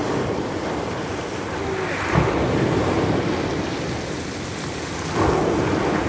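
Small sea waves breaking on a pebble beach and washing over the stones, with two louder breaks about two and five seconds in.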